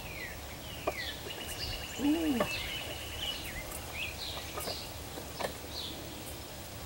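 Songbirds chirping in short falling calls, with a quick even trill lasting about two seconds and a few faint clicks. A brief low vocal sound comes about two seconds in.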